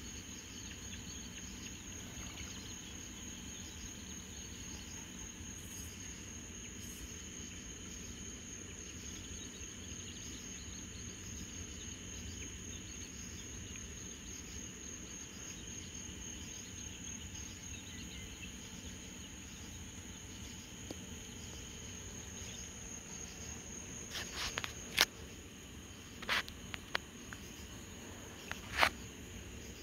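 Crickets trilling in a steady, high, evenly pulsing chorus. Near the end come a handful of sharp clicks, the loudest two a few seconds apart.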